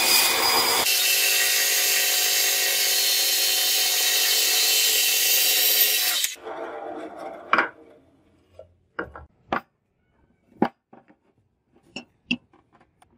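Band saw running and cutting through a wooden block, a loud steady whine with a rough cutting noise, which stops suddenly about six seconds in. A few scattered sharp knocks and taps follow.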